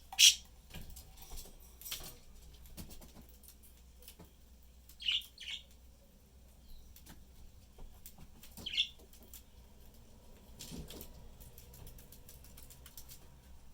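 Pet budgerigars giving short, sharp chirps: a loud one right at the start, two close together about five seconds in, and one near nine seconds, with scattered soft clicks and rustling between them.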